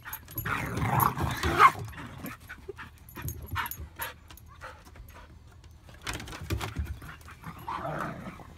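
A Belgian Malinois and a Miniature Pinscher play-fighting: short yips and barks, loudest about a second in, with clicking scuffles in between.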